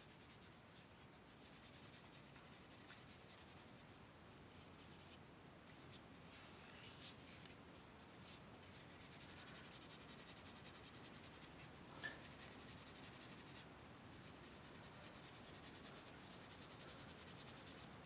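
Faint rubbing of a bunch of tea tree leaves scrubbed along a wooden club, wiping excess white ochre off its carved lines, with a small tick about twelve seconds in.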